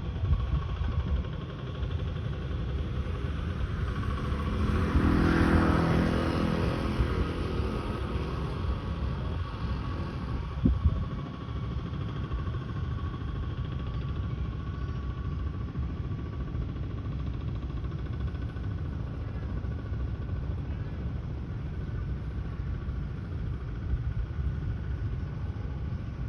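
Outdoor background rumble with a motor vehicle passing by, its engine swelling and fading away about five seconds in, then a single sharp knock.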